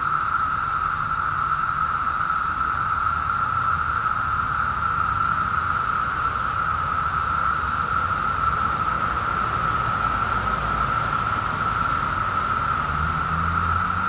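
Chorus of Brood V periodical cicadas (Magicicada): a loud, steady, unbroken drone.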